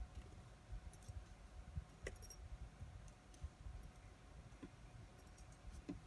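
Faint, scattered small clicks and taps of watchmaker's tools on the parts of an automatic wristwatch, over a low room rumble.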